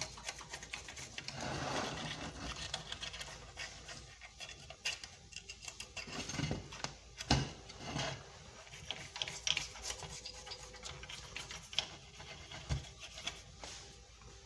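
Irregular small clicks, taps and scraping of hand tools working on an electronic circuit board, with the loudest tap about seven seconds in.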